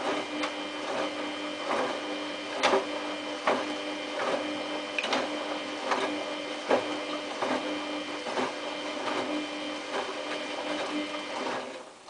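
Samsung WF8804RPA washing machine drum turning during the prewash: a steady motor whine with a knock a little under once a second as the wet load tumbles, stopping near the end.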